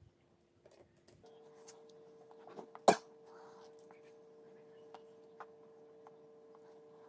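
Faint breathy sounds of a man drawing on a bare disposable vape cartridge, over a faint steady hum with a few light ticks. One sharp click sounds about three seconds in.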